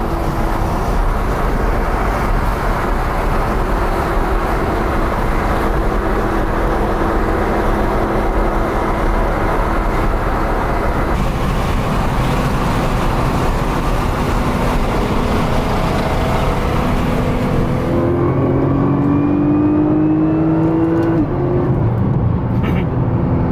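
Car engine and road noise heard from inside the cabin at highway speed. Near the end the engine note rises steadily for about three seconds as the car accelerates, then falls away suddenly, as at a gear change.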